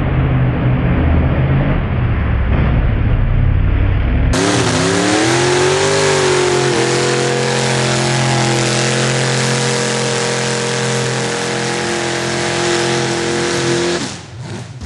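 Mud-bog truck engine running at full throttle as the truck plows through a mud pit. About four seconds in the sound cuts to another truck, whose engine climbs in pitch and then holds steady at high revs before dropping away near the end.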